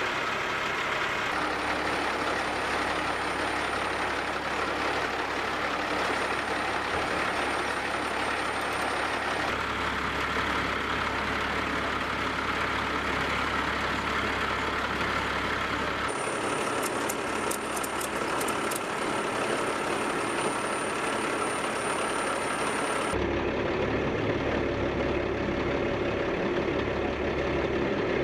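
Heavy wrecker truck's engine running steadily while its crane holds an aircraft wreck, with the sound shifting abruptly a few times. A few faint clicks come about two-thirds of the way through.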